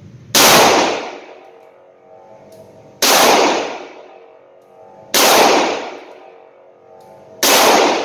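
Four shots from a Rock Island AL9.0 9mm revolver firing 115-grain +P rounds, spaced two to three seconds apart. Each shot is followed by about a second of echo from the indoor range.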